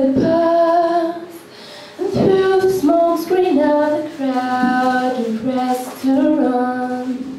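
A woman and a man singing a slow ballad as a duet without accompaniment, holding long notes, with a short breath pause about a second and a half in.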